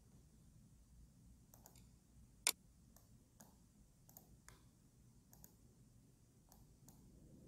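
Faint computer mouse clicks, a dozen or so scattered through, several in quick pairs like double-clicks, with one much louder click about two and a half seconds in.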